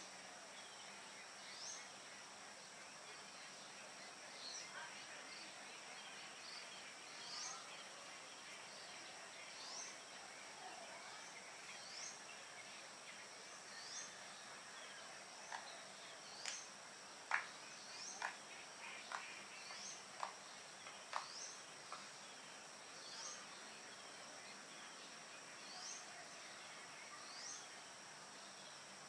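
Faint tropical dawn chorus: a steady, high insect drone with a bird repeating a short rising chirp every second or two. About halfway through comes a quick run of sharper, louder short notes.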